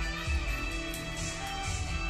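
Background music with a steady beat, with a couple of faint clicks near the middle.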